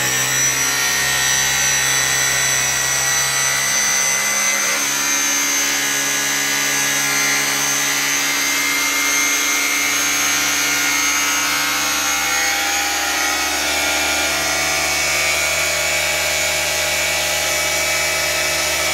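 Bosch GBH 180-LI 18 V cordless rotary hammer running with no bit in hammer mode, its hammer piston working in freshly packed grease after a compression-ring replacement. The running note shifts about five seconds in and again near fourteen seconds as the grease spreads and the mechanism goes from tight to freer.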